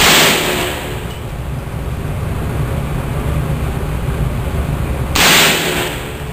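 Two suppressed shots from an M1A/M14 rifle in 7.62×51/.308 fitted with a SureFire suppressor, about five seconds apart, each a sharp report with a short fading tail, over a steady low rumble.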